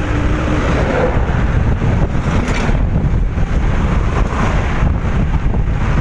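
Wind buffeting the microphone of a moving motorcycle, over the low rumble of its engine and the road.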